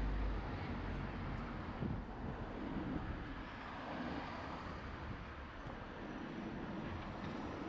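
Street ambience: a steady wash of traffic noise, with low wind rumble on the microphone in the first moments.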